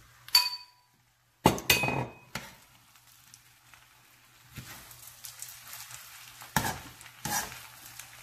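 Fried rice sizzling in a frying pan while a metal spoon stirs it, scraping and knocking against the pan several times. Near the start there is a short ringing clink, then a clatter as diced pork is tipped in from a bowl.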